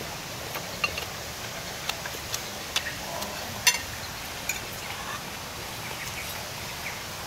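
Metal spoons and forks clicking and scraping on ceramic plates during a meal: a handful of separate sharp clinks, the loudest about three and a half seconds in, over a steady background hiss.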